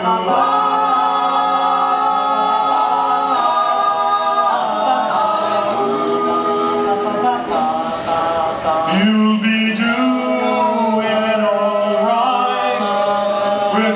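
A cappella vocal quartet of two women and two men singing in close harmony: long held chords that change every few seconds, with a lower voice coming in strongly about nine seconds in.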